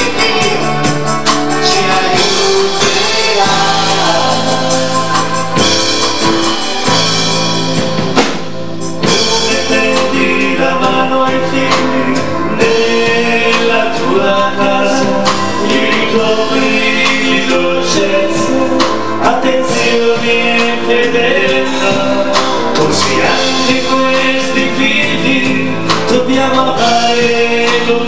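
A song with singing over instrumental accompaniment, with a brief break about eight seconds in.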